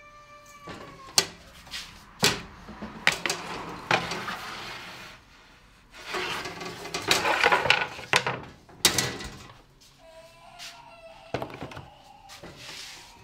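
A baker's peel knocking and scraping across the hearth of a wood-fired bread oven as loaves are slid in, with several sharp knocks. Near the end comes a lighter clatter of metal loaf tins being handled.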